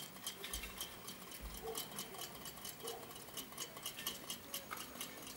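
Quiet, steady rapid ticking, about four ticks a second.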